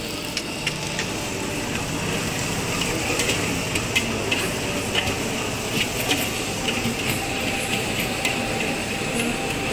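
Steady rushing hiss of a gas wok burner and fried rice frying in the wok, with scattered sharp clinks of metal utensils about once a second.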